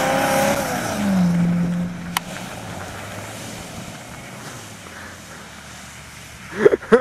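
Truck engine running hard under a loud rushing noise. About a second in, its pitch drops and the sound fades away steadily.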